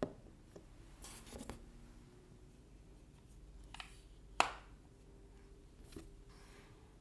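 Samsung Galaxy Buds plastic charging cases handled on a table. A tap as one is set down at the start, a brief rub, and one sharp click about four and a half seconds in from the case's hinged lid, the loudest sound. A lighter tap comes near the end.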